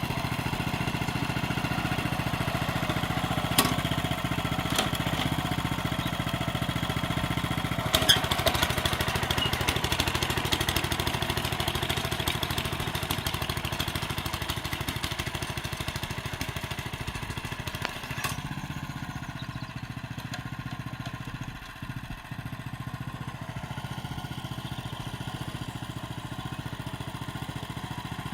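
Honda FJ500 tiller engine running steadily while ploughing, with a few sharp knocks and a stretch of rattling clatter in the first half. The sound drops and eases off about two-thirds of the way through.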